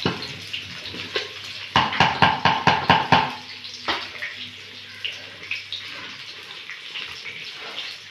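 A ladle stirring and beating soft cooked dal in the pressure cooker pot, with wet sloshing. About two seconds in comes a quick run of roughly eight strokes in a second and a half, then softer scattered scrapes and clicks.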